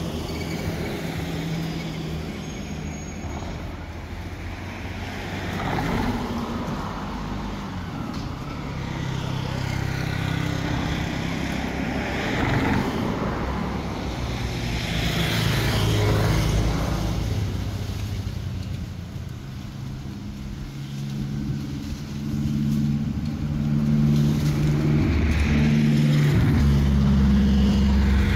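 Road traffic: motor vehicle engines running and passing, with several vehicles swelling past and one engine's hum growing louder near the end.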